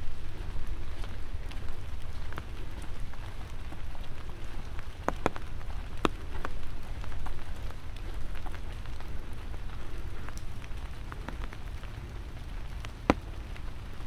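Light rain falling, with scattered sharp drop ticks and a single louder tick near the end, over a steady low rumble.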